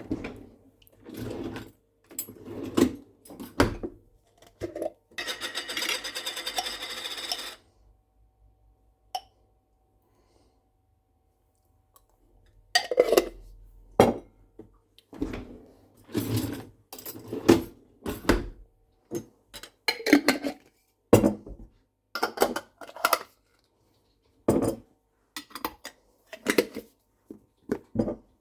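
Dishes and kitchen utensils being handled: irregular clinks, knocks and clatter, with a rushing noise lasting about two and a half seconds near the start.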